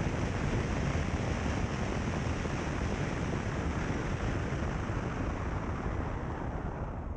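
Steady rush of a car driving on a gravel road: tyre and wind noise with no distinct engine note. The higher hiss thins slightly near the end.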